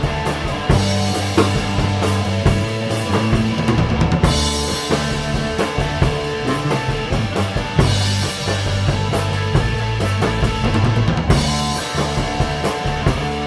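Punk rock band playing a loud, driving song, the drum kit with bass drum and snare to the fore over a steady bass line.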